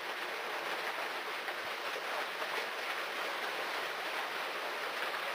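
Steady hiss of falling rain, an even noise with no distinct events.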